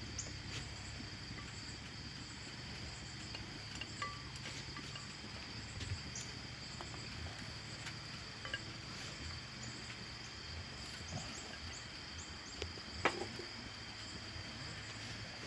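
Quiet, steady high-pitched drone like an insect trill over a low hum, with scattered light clicks and taps of utensils as food is assembled, one sharper click about thirteen seconds in.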